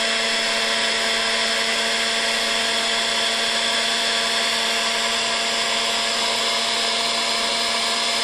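Hot-air heat gun running steadily: an even rush of blowing air over a constant motor hum, as it shrinks heat-shrink tubing.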